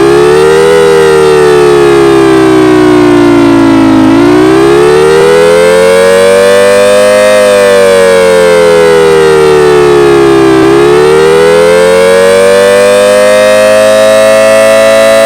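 Federal Signal outdoor warning siren wailing, very loud: its pitch slowly rises and falls in long cycles about six and a half seconds apart.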